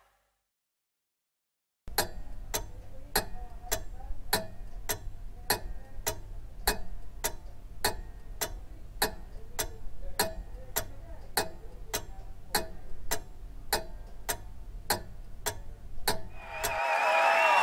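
Clock ticking steadily, about two ticks a second, starting about two seconds in after silence and stopping shortly before the end.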